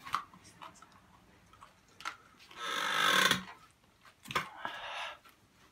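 A person's breath hissed sharply through the pursed mouth, one loud breath about halfway through and a softer one near the end, with small wet mouth clicks between, as the mouth burns from extreme sour candy.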